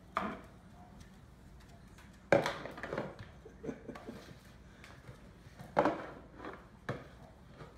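Orange plastic bucket over an English bulldog's head knocking against a tile floor and a wooden cabinet as the dog walks blind: several sharp knocks, the loudest a little over two seconds in.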